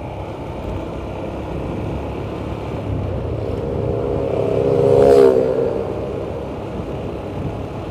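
Motorcycle riding along a road, with steady engine, wind and road noise. About four seconds in, an oncoming motorcycle's engine note swells and passes close by, loudest around five seconds in, then fades.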